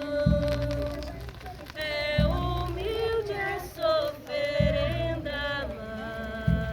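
A group of women and children singing a song together in unison, without instruments. A low rumble comes and goes under the singing about every two seconds.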